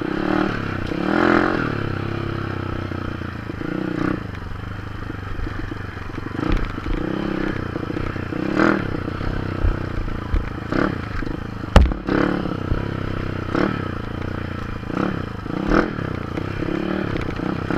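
Honda Dream 100cc motorcycle's single-cylinder four-stroke engine running while riding a bumpy dirt trail, the revs rising and falling, with rattling and knocks from the bike jolting over the rough ground; the loudest is one sharp knock about twelve seconds in.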